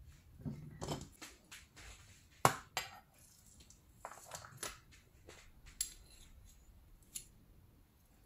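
Metal spoon clinking and scraping as thick apple jam is scooped from a small tub and pushed off onto raw chicken wings in a plastic container. The clicks and scrapes are light and irregular, and the sharpest comes about two and a half seconds in.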